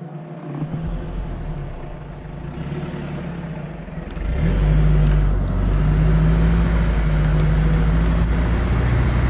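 Toyota Land Cruiser off-road truck's engine running low, then revving up about four seconds in and holding as it strains to drive out of a mud hole. A hiss joins in as the wheels churn the wet mud.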